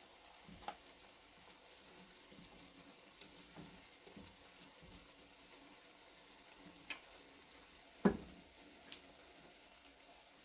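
Shrimp frying in butter in a pan, a faint steady sizzle, while a spatula stirs a pot of cream sauce. A few light knocks come from the stirring, the clearest about seven and eight seconds in.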